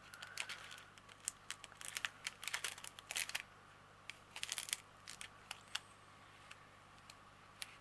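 Small plastic bags of diamond painting drills being handled and sorted: irregular light crinkling and clicking, busiest in the first few seconds and sparser after.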